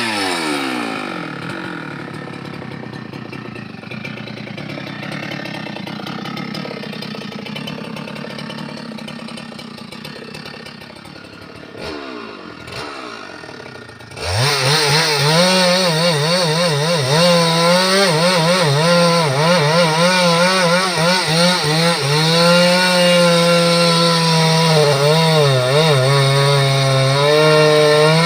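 Chainsaw engine: its revs fall away at the start and it runs quieter for about twelve seconds. About fourteen seconds in it goes to full throttle and stays there, its pitch wavering and dipping as it cuts into a log.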